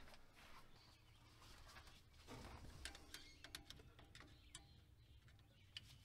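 Near silence: faint scattered clicks and taps of a screwdriver working at the carburetor, with faint bird calls in the background.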